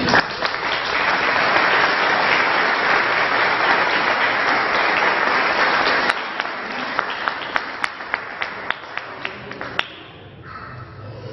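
Audience applause: dense and steady for about six seconds, then thinning into scattered single claps that die out shortly before the end.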